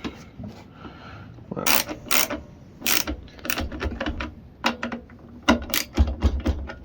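Ratchet wrench clicking in irregular runs as a small bolt into the air filter housing of a lawn mower engine is turned and tightened, with a few louder clacks of tool against metal.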